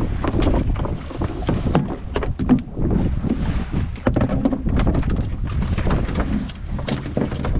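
Wind buffeting the microphone on an open fishing boat, with water sounds and scattered knocks and splashes from fish and gear being handled around the boat's water tank.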